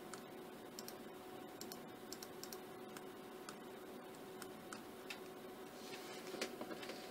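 Faint, irregular clicking from computer use, mouse and keyboard clicks, over a steady faint hum.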